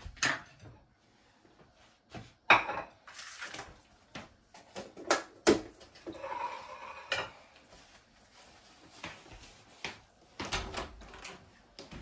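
Kitchen clatter: scattered knocks and clinks of pots, utensils and a knife on a wooden cutting board being handled, with a sharp knock about two and a half seconds in and two more around five seconds in.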